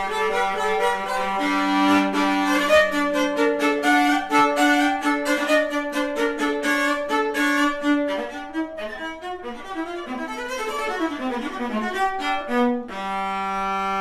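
A 16.25-inch viola, made by Richard Welde in 1996, played solo with the bow. A moving melody runs over a held low note, ending on a long held chord that rings out.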